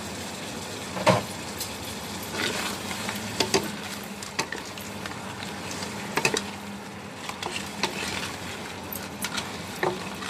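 Crabs in curry sauce sizzling in a wok while a wooden spatula stirs them, knocking and scraping against the pan and the crab shells. The knocks come irregularly over the steady sizzle, the loudest about a second in.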